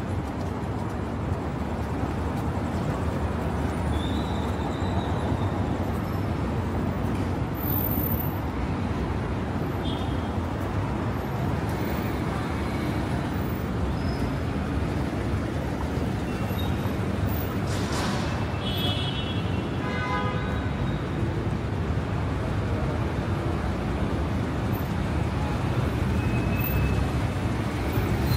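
Steady city street traffic noise from passing cars. About eighteen seconds in there is a brief hiss, followed at once by a quick run of short beeps.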